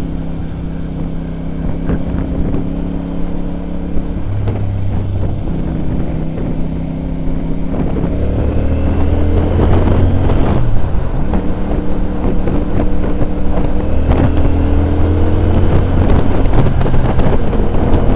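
CFMoto 450CL-C's parallel-twin engine running under way. Its pitch steps up and down as the revs change, climbing and dropping sharply about ten seconds in, and it grows louder towards the end, with wind buffeting the microphone.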